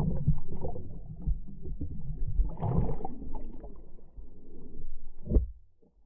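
Water sloshing and churning against the camera as a shark thrashes at the surface, heard as low rumbling with irregular knocks. A sharp knock comes about five seconds in, and then the sound cuts off.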